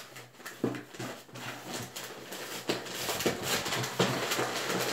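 Clothing and packaging being handled as a clothing subscription box is unpacked: irregular rustling and crinkling with many small clicks.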